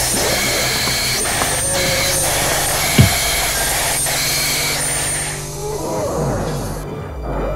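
Film sound design: a harsh hissing noise bed with one heavy boom about three seconds in that falls in pitch. The hiss drops away near the end, leaving a low drone.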